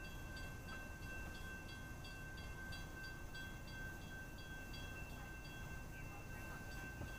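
Railroad grade-crossing warning bell ringing faintly at about three strikes a second, heard from inside a stopped car, then stopping near the end. Under it is a low, steady rumble.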